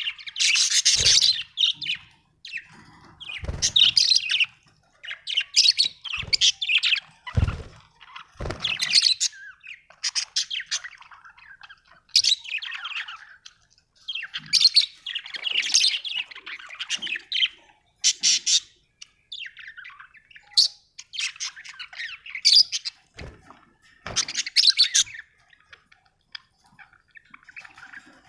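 Budgerigars chirping and squawking in quick clusters of calls with short pauses between them, with a few soft thumps mixed in.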